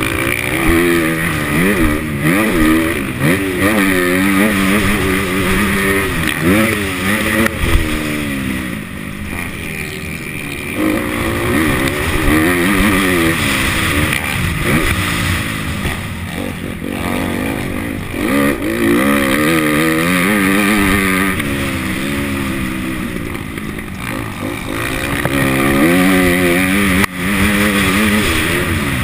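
Motocross dirt bike engine being ridden hard, its pitch climbing under throttle and dropping back again and again as the rider shifts gears and rolls off.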